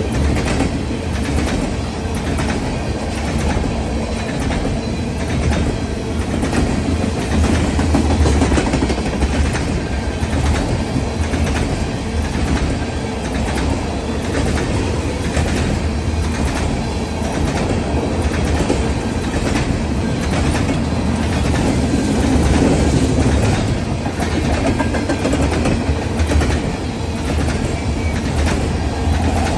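Freight train of tank cars rolling steadily past at speed: a continuous loud rumble of steel wheels on rail with a regular clickety-clack as the wheels pass over the track.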